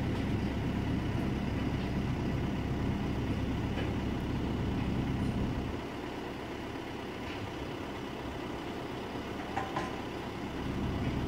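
Crane engine running steadily while holding a suspended load, easing off about six seconds in and picking up again near the end.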